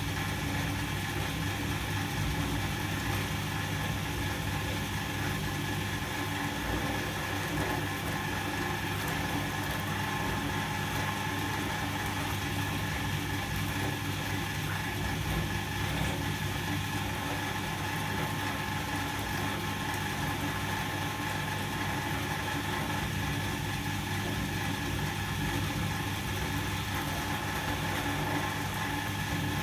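Volga-8R washing machine running steadily in wash mode: a constant motor hum with vibration and no breaks or changes.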